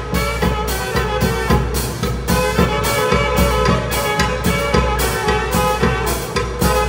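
Zacatecan tamborazo band playing: two saxophones carry the melody over a large bass drum (tambora), snare drums and cymbals keeping a steady beat.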